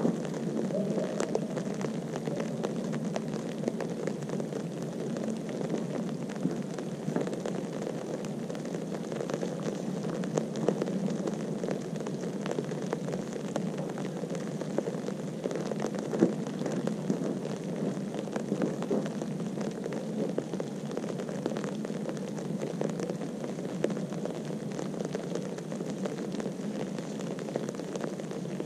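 Steady rushing noise with a light crackle throughout: wind on the camera's microphone.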